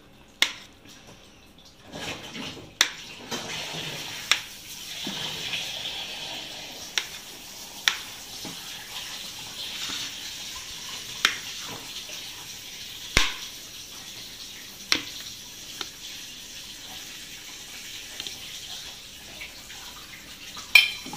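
Knife tapping against a ceramic plate as paneer is cut into cubes: sharp single clicks every second or two, over a steady hiss.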